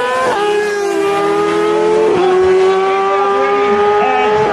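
600 cc inline-four sport-bike engines, a Yamaha R6 and a Honda CBR600RR, accelerating at full throttle off a drag-race start. The high engine note climbs within each gear and drops sharply at each upshift, about every two seconds.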